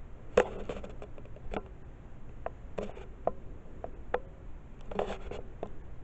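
Air King box fan running with a steady low whir, while a series of about ten irregular sharp clicks and knocks sounds over it, bunched near the start, in the middle and near the end.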